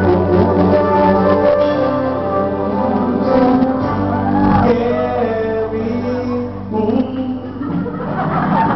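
Live band music with a singer on microphone, amplified in a large room. The music quietens briefly near the end.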